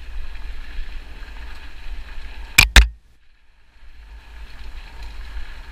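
Mountain bike rolling fast down a dirt trail: steady rolling and wind noise with rattling, broken by two sharp, loud knocks about two and a half seconds in, after which the sound drops almost to nothing for about a second before the rolling noise returns.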